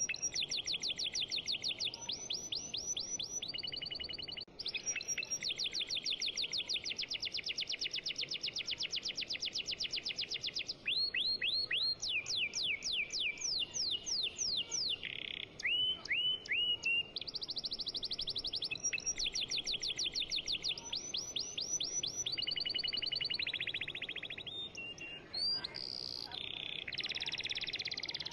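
Songbird singing: long runs of rapid, evenly repeated high chirps and trills that switch to a new note pattern every few seconds.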